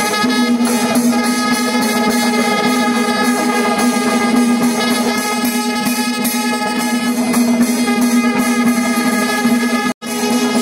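Loud music with a steady, held droning note and busy accompaniment. It cuts out for an instant near the end, then resumes on the same note.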